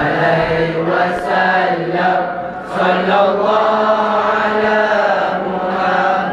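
A group of schoolboys singing a nasyid together on stage in long, held chant-like phrases.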